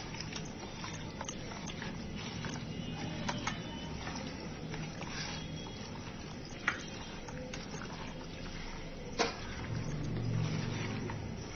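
Chicken pieces being mixed by hand in a yogurt-and-spice marinade in a stainless steel bowl: wet squishing with small clicks of meat against the steel, two sharper clicks partway through. A steady low hum runs underneath.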